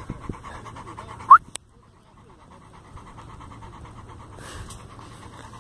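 Blue-nose pit bull panting rapidly with its tongue out. About a second in, the panting is broken by one short, loud, high squeak. After that the panting carries on more faintly.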